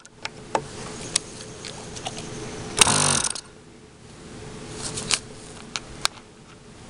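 Sharp clicks and handling noises around a SuperTigre G51 glow engine on its test stand. About three seconds in, a half-second whirr as a hand-held electric starter spins the engine over. The engine does not keep running.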